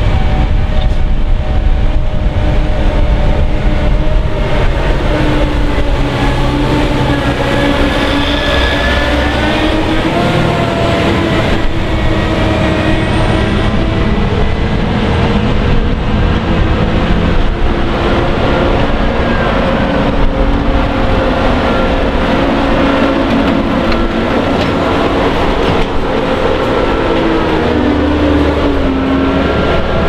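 Claas Lexion combine harvesters driving past on the road, their diesel engines running loudly and steadily, with the engine note shifting up and down in pitch as the machines go by.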